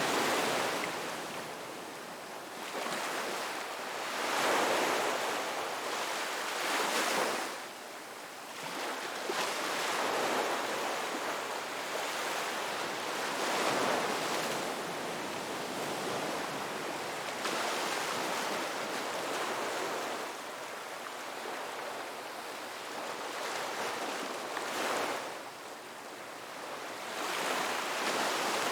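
Ocean waves breaking on a beach, a continuous wash of surf that swells and ebbs every few seconds.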